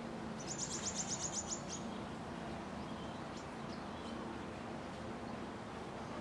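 Pin-tailed whydah giving a rapid run of high, sharp chips, about eight a second for a second and a half near the start, then a few scattered single chips, over a steady background hiss.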